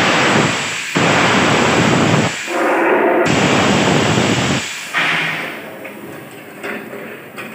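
The dump valve of an LHB coach's wheel slide protection system, mounted on a test bench, exhausting compressed air in several loud hissing blasts back to back as it is switched from the control box. The blasts die away after about five seconds.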